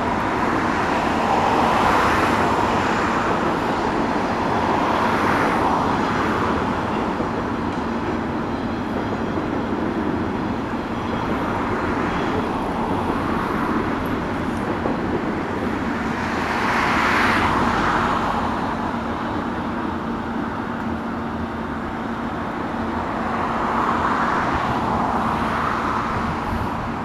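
Road traffic passing close by, about five cars one at a time, each a swell of tyre and engine noise that rises and fades over a few seconds, over a steady low hum.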